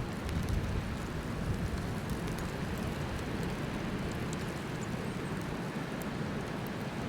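Storm wind from a nor'easter blowing steadily: a low, unsteady rumble under an even hiss, with a few faint ticks.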